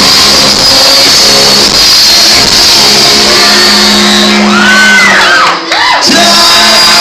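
Live rock band at a concert, holding one long note at the end of a song while audience members scream over it. The recording is overloaded and distorted.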